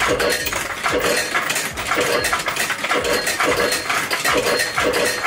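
Coins clinking through a fruit machine, each coin matched by a short electronic tone from the machine, in a steady run of about two a second.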